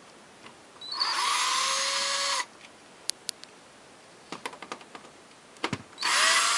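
Power drill run twice in short runs of about a second and a half, its motor whine rising as it spins up and then holding steady, backing screws out of a TV's casing. Light clicks of handling between the runs.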